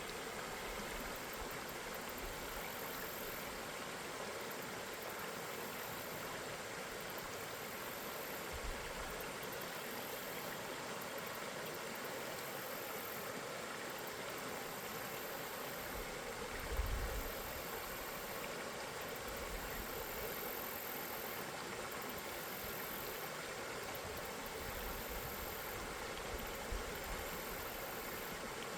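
River water flowing steadily, an even rushing noise, with a couple of brief low thumps about nine and seventeen seconds in.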